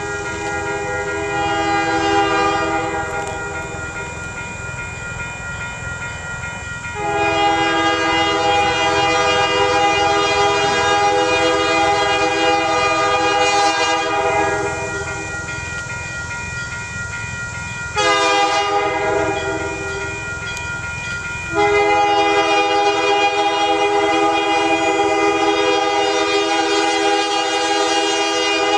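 Diesel locomotive's multi-chime air horn sounding the grade-crossing signal as the train approaches: a blast fading out early, then a long blast, a short one and another long one held on. This is the lead unit, the ex-Canadian Pacific MLW C424 No. 4212.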